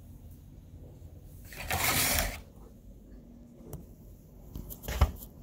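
Handling noise as the phone camera is moved about on the porch beside a plastic bucket of joint compound: a scraping rustle lasting about a second, about two seconds in, then a few light ticks and a sharp knock near the end.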